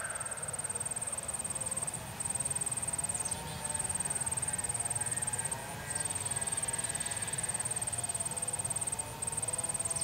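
An insect buzzes in a steady, high-pitched drone that breaks off briefly a few times. Faint wavering siren tones sound underneath.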